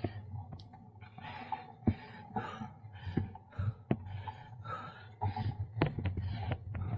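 A runner breathing hard and fast while running uphill, one quick breath after another in an even rhythm, with a few short knocks among them.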